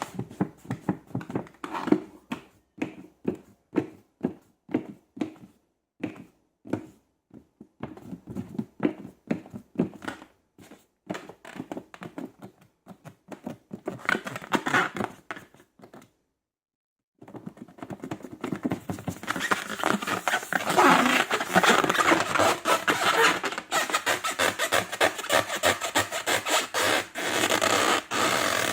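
Hands working slime and its materials: a run of short separate clicks and snaps, a brief dead silence about sixteen seconds in, then denser continuous crackling and scraping.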